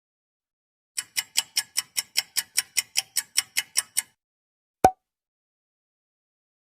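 A fast mechanical ticking sound effect, about five even ticks a second for some three seconds, followed a moment later by one sharp click.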